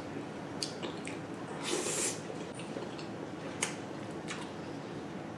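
Close-miked eating of creamy pasta: soft wet mouth and chewing sounds with a few light clicks of a fork, and a brief rustling hiss about two seconds in.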